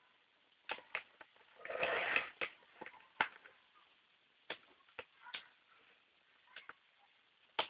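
Neocube neodymium magnet balls clicking as sections of the structure snap together, about ten sharp, irregular clicks. About two seconds in there is a brief louder rustle.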